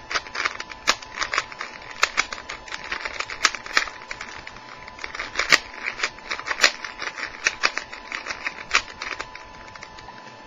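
Brand-new 3x3 Rubik's Cube, lubricated with petroleum jelly, being turned by hand during a solve. It gives rapid, irregular plastic clicks and clacks, several a second, that stop shortly before the end. The cube is very stiff, not yet broken in.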